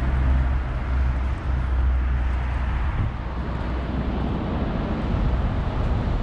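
Steady outdoor background noise: a low, wavering rumble of wind on the microphone over the even hum of road traffic.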